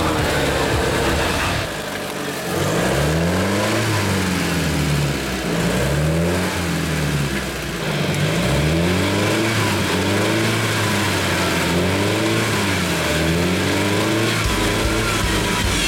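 Off-road vehicle engine held at steady revs, then revved up and down over and over, about once every second and a half.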